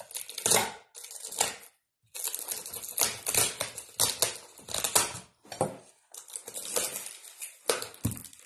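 Hands tearing and crinkling the wrapping of a sealed package: a run of irregular scratchy crackles with short pauses between them.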